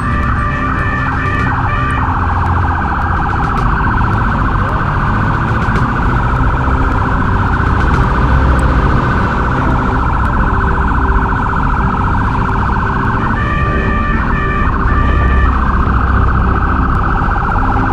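Police siren sounding without a break, fast and wavering, switching to a choppier, stepped tone for a couple of seconds at the start and again about two-thirds of the way in. A low rumble runs underneath.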